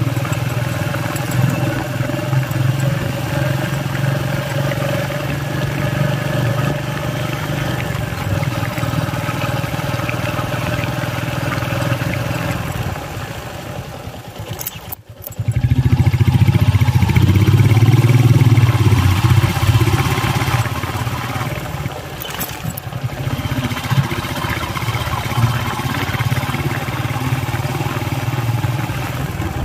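Engine and road noise of a moving vehicle, heard from inside it. The noise is steady, dips almost to nothing for a moment about halfway, then comes back louder for a few seconds.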